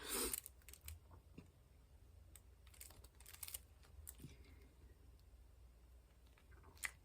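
Soft, scattered clicks and taps of a diamond-painting drill pen setting square drills onto the canvas, with a brief rustle at the start and one sharper click near the end.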